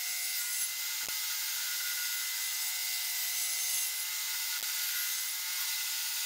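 Table saw running and cutting through a screwed-together wooden box with laminate panels: a steady whine with the hiss of the blade, and a few faint clicks.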